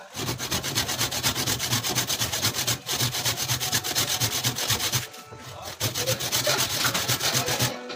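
Handsaw cutting a block of ebony hardwood in quick back-and-forth strokes, with a short pause about five seconds in.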